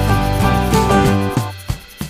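Background music with a steady beat, dropping away briefly near the end.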